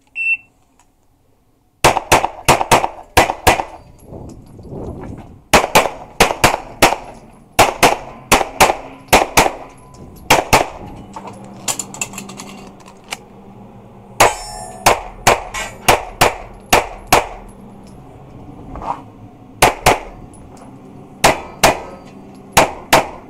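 A short electronic beep, the shot timer's start signal, then a handgun fired in fast pairs and strings of shots with short pauses between them, echoing off the concrete walls of an indoor range.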